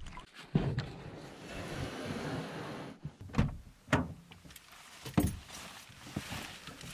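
A knock and a couple of seconds of water noise beside a small aluminium boat. Then, from about three seconds in, a pickup truck's driver door is opened and a person climbs into the seat, giving several sharp clicks and knocks from the door, latch and cab.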